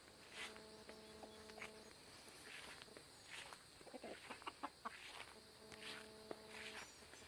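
Faint chickens clucking and calling, with two drawn-out steady notes about a second and a half each, and a quick run of short clucks in between.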